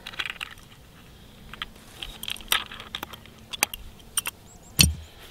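Metal hardware clinking and clicking in scattered, irregular taps as a nut and bolt are fitted through a wooden tool handle and worked with a small wrench. A dull thump near the end.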